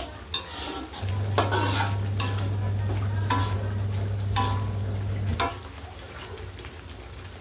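Metal spatula stirring and scraping a thick spice sauce as it fries in a steel wok, with sizzling and a short ringing clink at each stroke, about once or twice a second. A low steady hum runs under it and stops about five seconds in.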